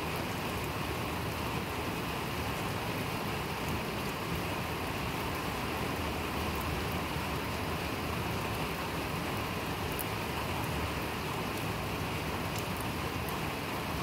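Steady rain falling on wet paving stones and a lawn, an even hiss with now and then a sharper drop tick.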